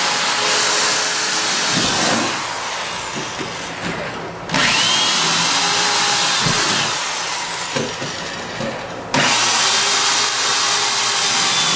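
Power drill boring through the bus's metal wall panels in three long runs of loud, grinding hiss. The drill whines up to speed at the start of the second run, and short clicks of handling fall in the quieter gaps between runs. It is drilling out rivets or easing rivet holes with a 13/64 bit.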